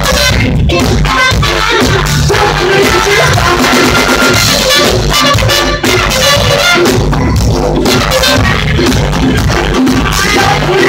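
A live band playing loud, up-tempo music, with electric bass guitar, a drum kit and a trumpet.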